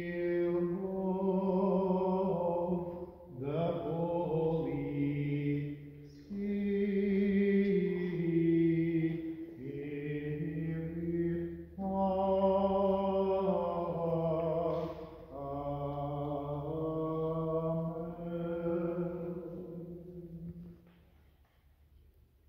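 A single man's voice chanting Byzantine liturgical chant unaccompanied, in phrases of long held notes a few seconds each; the chanting stops near the end.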